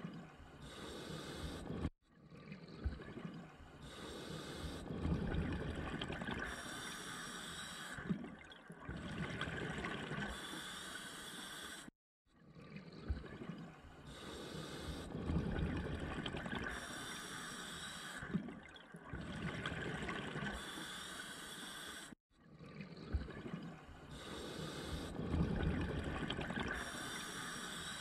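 Scuba diver breathing through a regulator: hissing inhalations alternate with bubbling, rumbling exhalations. The same stretch of breathing repeats about every ten seconds, each time after a brief dropout.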